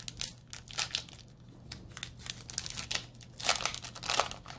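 Foil Pokémon booster pack wrapper crinkling as it is handled and torn open, a run of sharp crackles with the loudest ones near the end as the foil tears.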